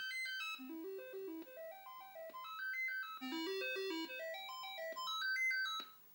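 Commodore SX-64's SID sound chip playing the Dead-test cartridge's sound test: short electronic notes step up the scale from low to high in runs about three seconds long, repeating, then cut off suddenly near the end as the test cycle restarts.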